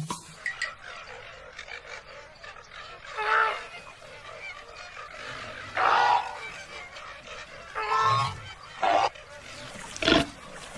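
Several short animal calls, about five in all, each lasting around half a second and spaced one to two seconds apart.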